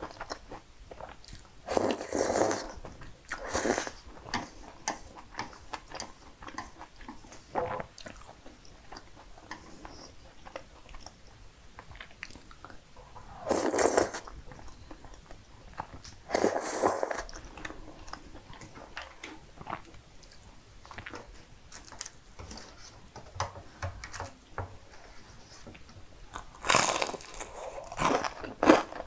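Close-miked eating: cream-sauced spaghetti slurped in several short, loud bursts, with soft chewing and small mouth clicks between. Near the end come crisp bites into a breaded, fried pork cutlet.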